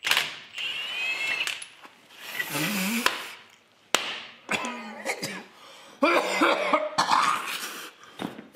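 A man coughing, grunting and groaning with strain, with a few sharp clicks in between.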